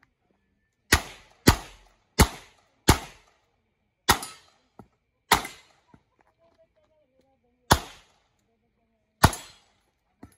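Smith & Wesson 929 9mm revolver fired eight times: four shots in quick succession in the first three seconds, then four more spaced a second or two apart.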